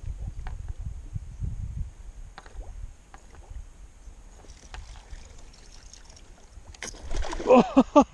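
A bass strikes a topwater lure with a sudden splash a little under seven seconds in, after a stretch of faint ticks and low rumble from the lure being worked. The strike is followed at once by a man's loud, rapid excited exclamations.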